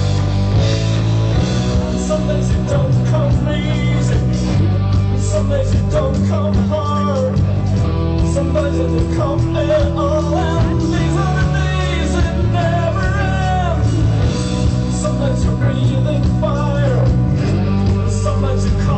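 Live band playing a song with a lead vocal: a steady, heavy bass and drums under a wavering sung melody.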